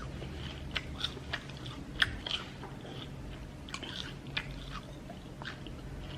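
A person chewing and biting a mouthful of fish and amala, with irregular small crunches and wet clicks, the sharpest crunch about two seconds in.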